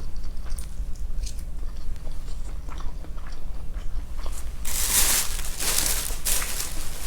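A person chewing food close to the microphone, with faint mouth clicks at first and then a run of loud crunchy bites for about two seconds starting some four and a half seconds in.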